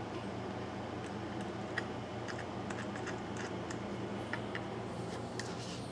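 Light, irregular clicks and ticks of a screwdriver working the chain-tensioner adjusting screw in a Poulan Wood Shark chainsaw's plastic side cover, over a steady low hum.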